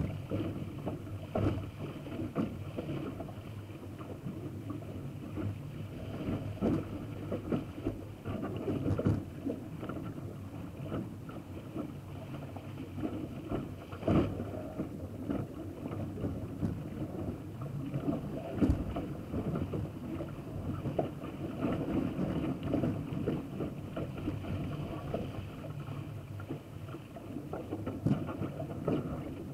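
Water rushing and splashing along a sailing dinghy's bow as it sails fast, with wind buffeting the microphone. Occasional sharper slaps of waves against the hull stand out, one about 14 seconds in.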